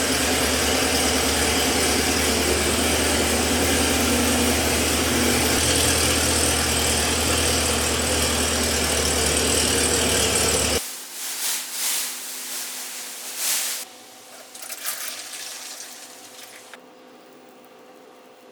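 A machine runs steadily with a low hum for about eleven seconds, then cuts off suddenly, followed by a few short hisses.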